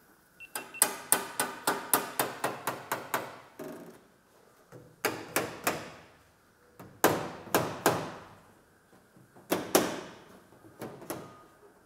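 Small hammer striking upward against the underside of a Cessna 172B's aluminium wing, each blow ringing in the metal. A quick run of about a dozen light taps comes first, then several short groups of two to four harder blows.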